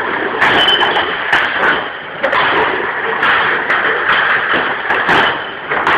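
Beer crates being handled and stacked: a dense, continuous clatter with many sharp knocks and clinks.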